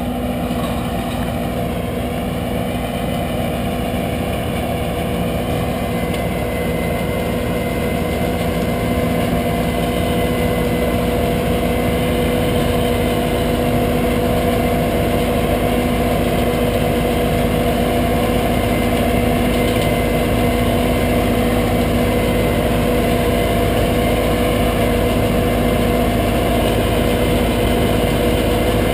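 Engines of orchard harvesting machinery running steadily, a constant drone with several steady hum tones, a little louder from about eight seconds in.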